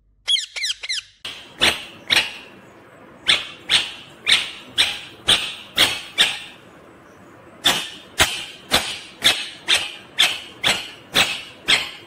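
Indian ringneck parakeet calling: a quick flurry of high, gliding chirps, then a long run of short, sharp calls about two a second, broken by two brief pauses.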